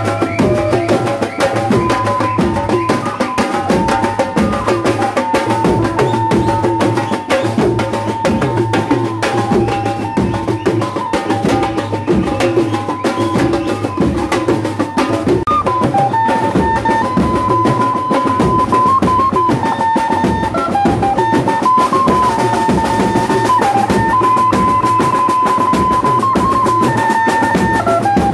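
Procession band drumming: snare-type side drums and a bass drum beaten fast and loud, with a melody instrument playing a simple tune of held, stepping notes over the drums.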